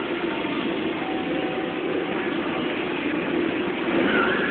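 Ducati Monster's V-twin engine running at fairly steady revs as the bike is ridden in stunts, growing louder about four seconds in.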